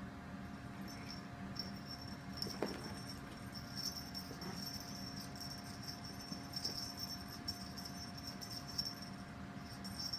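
Cat's collar jingling in irregular spurts as the cat scratches itself and twists around.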